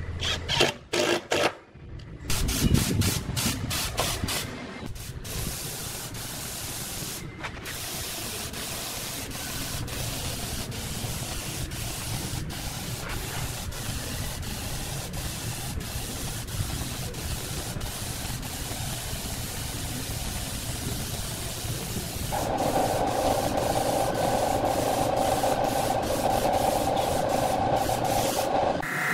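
A cordless impact driver with a small sanding disc, run in a few short bursts against a painted wooden speaker cabinet, then a long steady hiss of a paint spray gun. A steadier whirring band joins in about three quarters of the way through.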